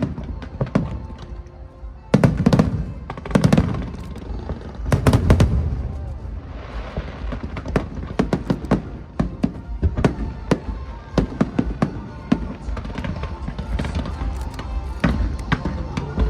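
Fireworks going off: a few deep booms in the first five seconds, then a long run of sharp cracks and crackles, with music playing underneath.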